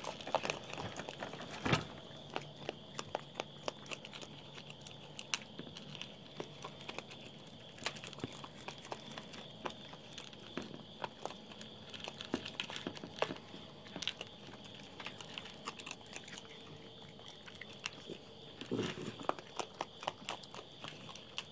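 Raccoons chewing and crunching dry cat kibble, a steady run of irregular crunches and clicks over a faint steady high drone.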